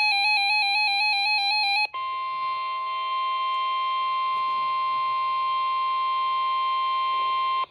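Emergency Alert System tones. For about two seconds there is a warbling electronic tone flipping rapidly between two pitches, like the coded header data burst. It then cuts to a steady, high alert tone held for the rest of the time, the attention signal before a severe thunderstorm warning.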